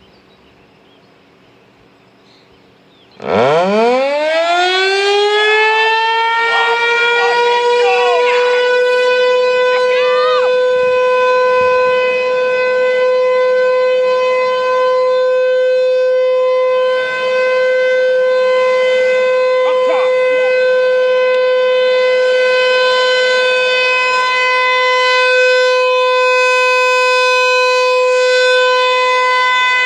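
American Signal T-135 electromechanical outdoor warning siren starting up about three seconds in, winding up quickly in pitch and then holding one steady tone for its scheduled test.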